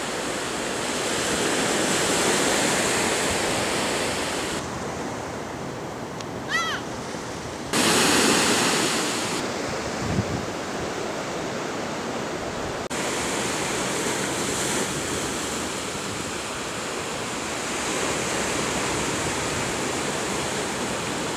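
Steady rushing noise of ocean surf, with some wind, whose level jumps abruptly a few times. A short, high chirp is heard about six and a half seconds in.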